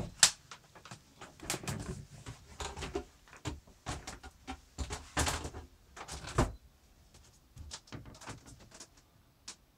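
Footsteps and the knocks of cabin doors and fittings being handled in a small boat cabin: irregular clicks and thumps, the sharpest about a quarter second in and a denser clatter around five to six and a half seconds in, dying away near the end.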